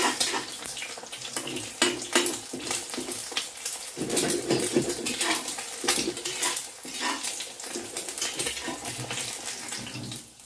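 Metal spatula scraping and clinking against a wok while an egg fries, with a steady sizzle underneath. The clinks and scrapes come irregularly, several a second.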